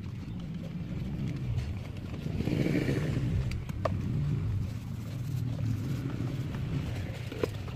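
Glass bottles being hand-washed in soapy water: scrubbing and sloshing, with two sharp glass clinks, about four seconds in and near the end, over a low steady rumble.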